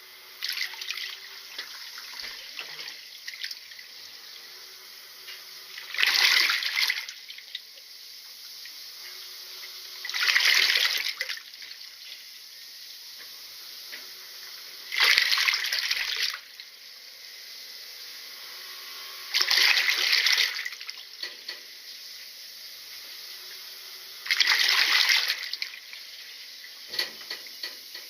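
Washing machine running with water in the tub: a steady rush of water with a louder swish about every four to five seconds, five times in all.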